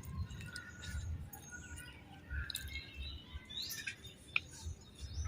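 Faint, scattered bird chirps, short high calls with one rising chirp about three and a half seconds in, mixed with a few small clicks over a low background rumble.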